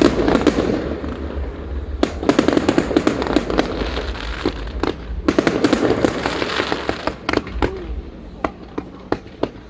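A fireworks display going off: sharp bangs and three dense stretches of rapid crackling, near the start, about two seconds in and about five seconds in. It thins to scattered pops and gets quieter near the end.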